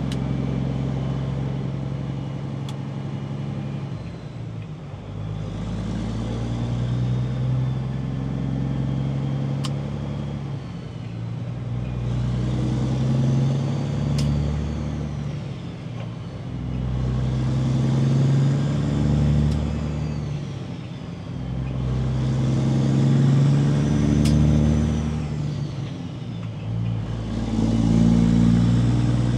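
Diesel engine of a Peterbilt 389 semi truck, heard from inside the cab, pulling up through the gears: the engine note climbs for a few seconds and drops back at each shift, about five times.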